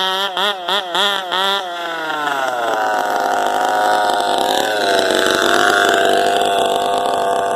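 Small two-stroke weed-eater-type engine of a gas-powered remote-control car, revved in several quick blips, then held at a steady high rev with a brief dip in pitch about halfway through.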